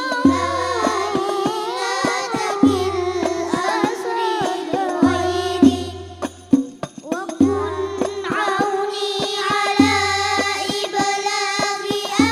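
Al Banjari sholawat: children's voices singing a wavering devotional melody over terbang frame drums. A deep drum stroke comes about every two and a half seconds, with quicker sharp slaps between. The drumming thins out briefly about six seconds in, then returns as the voices hold a steady note.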